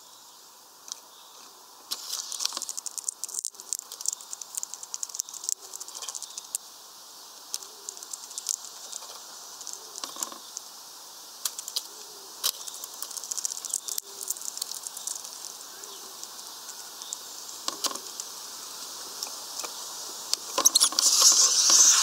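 Irregular tapping, clicking and scratching of small birds' beaks and claws on the wooden perches and seed feeder, with a louder flurry of wingbeats near the end as a hawfinch flies in.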